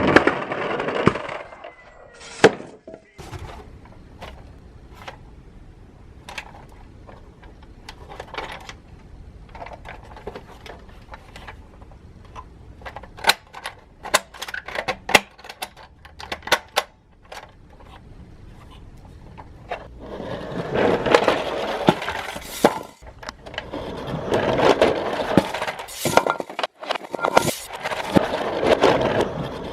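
Scattered sharp clicks and knocks, then stretches of denser rattling noise from about twenty seconds in.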